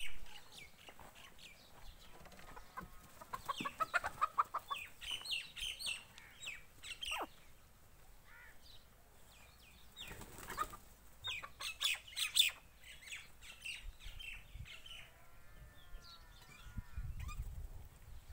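Farmyard chickens clucking and small birds chirping in quick clusters, busiest about four seconds in and again around ten to twelve seconds in, with a longer wavering call a little after fifteen seconds.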